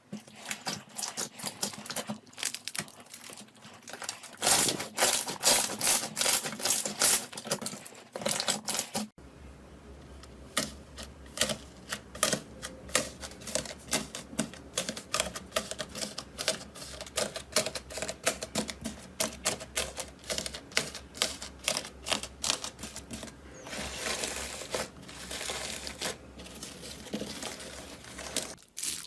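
Slime being squeezed and poked by hand, giving a fast, irregular run of sharp clicking and popping sounds. About nine seconds in the clip changes, and a steady low hum runs under the clicks from then on.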